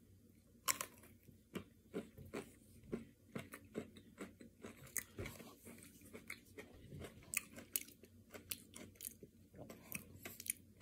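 A bite into a Nestlé KitKat Double Crunch ice cream bar's crunchy chocolate coating, then chewing: one sharp crack about a second in, followed by a long run of small, irregular crunches.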